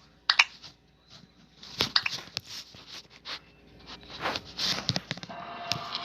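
Irregular clicks and light knocks of small objects being handled, coming at uneven intervals. Some are sharper, about a third of a second in and around two seconds in.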